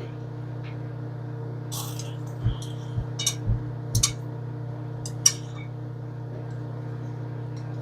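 Kitchen utensils and dishes handled, giving several short clicks and knocks between about two and five and a half seconds in, the sharpest near the end of that run, over a steady low electrical hum.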